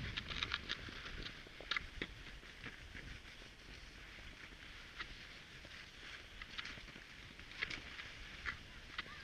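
Cross-country skis hissing over snow, with scattered sharp clicks and taps.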